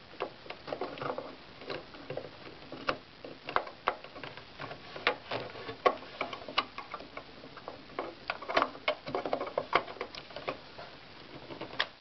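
Scattered small plastic clicks and taps of hands seating a 1 GB DDR RAM module into its motherboard slot and moving a ribbon cable aside inside a desktop computer case.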